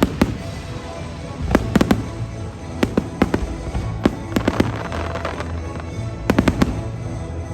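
Fireworks shells bursting in quick clusters of sharp bangs and pops, over show music from loudspeakers.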